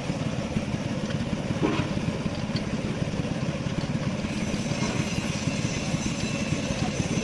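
An engine running steadily at idle with a fast, even chug.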